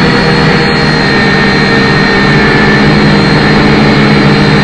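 Quadcopter drone's motors and propellers whining steadily in flight, several pitches held with only slight drift.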